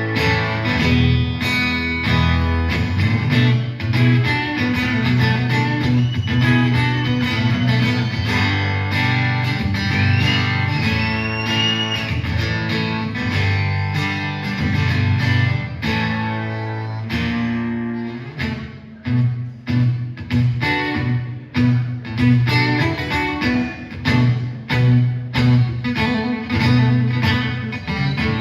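Live acoustic blues instrumental break: guitar picking lead lines with a few bent notes over a steady bass line. About two-thirds of the way through the music thins briefly, then a choppy rhythm picks back up.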